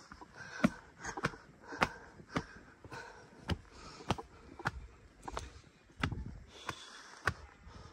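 Footsteps climbing stone steps: a short, sharp tap or scuff with each step, in a steady walking rhythm of a little under two steps a second.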